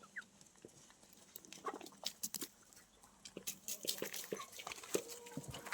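Chickens pecking at scattered feed: a patter of quick, light taps that grows denser near the end, with a few short calls among them.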